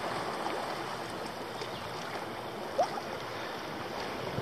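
Small waves lapping at the bay's shore and jetty, with a steady rush of light wind. A single short rising chirp sounds about three seconds in.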